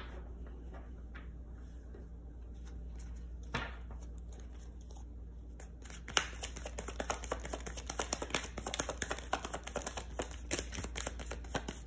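Tarot deck being shuffled by hand from about halfway in: a fast run of papery card flicks and clicks. Before that, only a single card tap against a quiet room with a low hum.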